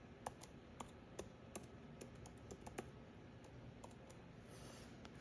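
Light tapping of typing on a tablet's touchscreen keyboard: about a dozen quick, irregularly spaced clicks that stop about four seconds in.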